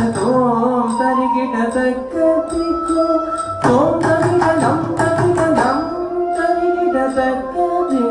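Carnatic music for a Bharatanatyam pushpanjali, in raga Thillang set to chatusra eka tala: a gliding melodic line over regular percussion strokes.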